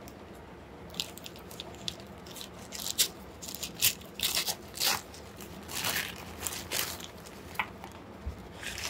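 Newspaper wrapping crinkling and tearing in irregular bursts as it is peeled off a potted plant, with a few louder crackles in the middle.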